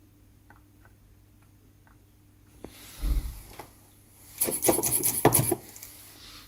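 Rubbing and scraping handling noises in two short bursts, the second one louder, after a few faint ticks.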